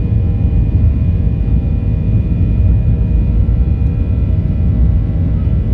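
Airliner engines and rumble heard from inside the passenger cabin as the aircraft moves along the runway: a steady, loud low rumble with several faint steady whining tones above it.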